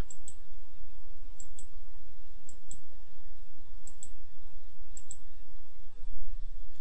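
Computer mouse button clicking about five times, roughly once a second, each click a quick press-and-release pair, over a steady low hum.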